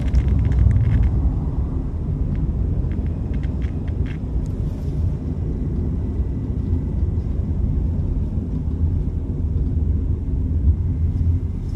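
Steady low rumble of road and engine noise inside a Honda N-BOX Custom's cabin, with irregular sharp clicking from the left sliding door, mostly in the first few seconds. The clicking is the door's abnormal noise that the owner complains of.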